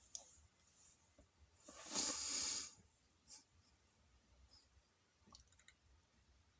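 A person's forceful breath: one rush of air, about a second long, about two seconds in, followed by a few faint clicks.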